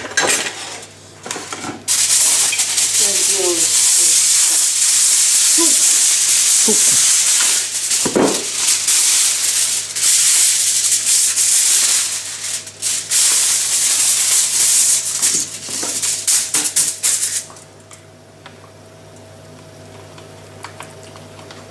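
Aluminium kitchen foil pulled off its roll and handled, crinkling and rustling loudly for about fifteen seconds, with brief pauses, then it stops.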